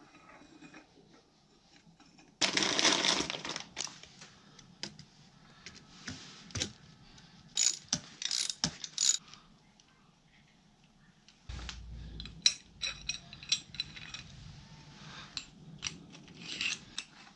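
Scattered metal clicks, clinks and ticks of tools and bicycle parts being handled as a folding bike's fork, stem and handlebar are fitted. A louder noise lasting about a second comes a couple of seconds in.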